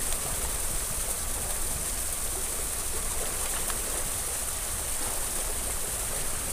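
Choppy seawater washing and lapping against the rocks and concrete base of a sea wall: a steady rushing wash with a low rumble underneath.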